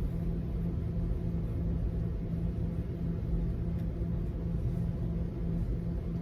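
Steady low rumble with a faint pulsing hum underneath, at an even level and with no shots or other sharp sounds.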